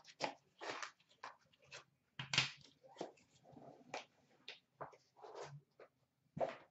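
A small sealed cardboard trading-card box being slit and opened with a knife: an irregular string of short crackles, scrapes and clicks from cardboard and wrapping.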